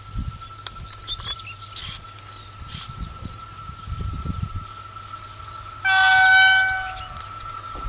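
PKP Intercity EP09 electric locomotive's horn sounding one steady blast of about a second, about six seconds in: the Rp1 "attention" warning signal of an approaching train. Birds chirp and wind rumbles on the microphone around it.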